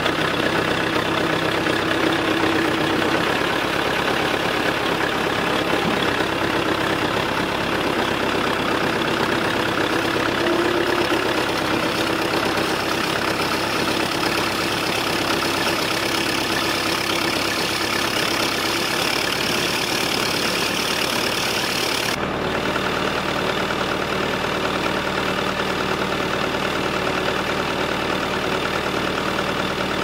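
Backhoe loader's engine idling steadily. About two-thirds of the way through the sound changes abruptly to a slightly different steady engine note.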